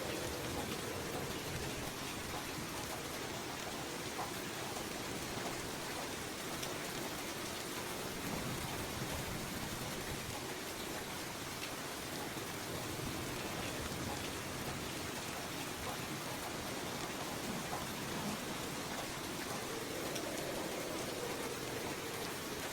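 Steady rain falling, an even hiss with scattered individual drops ticking and a slow low swell now and then.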